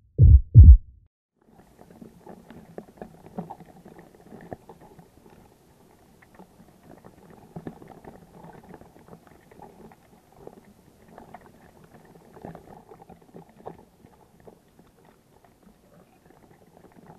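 A loud pair of low thumps in the first second, like a heartbeat sound effect. Then faint underwater crackling and clicking, as recorded by a camera underwater, over a fish school.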